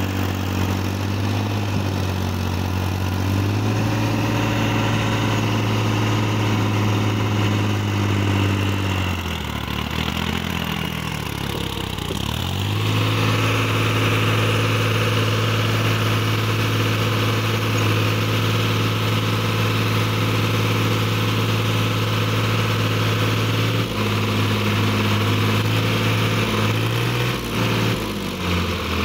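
New Holland TT55 tractor's diesel engine running steadily under load while the tractor is stuck in mud. About ten seconds in, the engine speed sags sharply and recovers within a few seconds.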